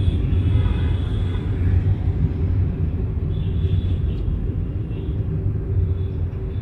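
Steady low rumble of a car's engine and tyres heard from inside the cabin while driving slowly in city traffic.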